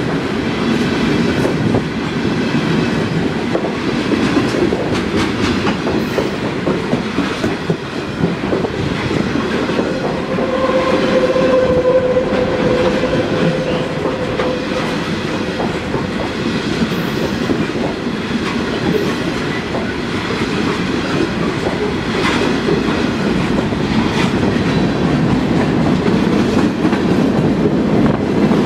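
Freight cars of a New York, Susquehanna & Western freight train rolling past at speed. The steady wheel-on-rail rumble carries the clickety-clack of wheels over rail joints, and a steady whine rises over it for about four seconds near the middle.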